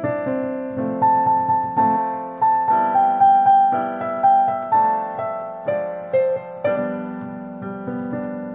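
Background music: a slow keyboard melody over held chords, each note struck and then fading.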